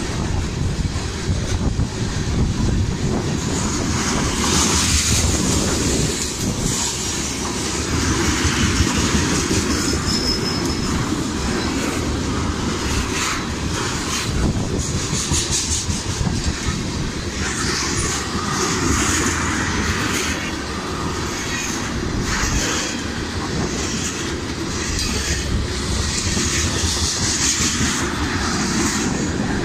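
Freight train of tank cars rolling past, its steel wheels running steadily on the rails with irregular clicks and clacks over the rail joints.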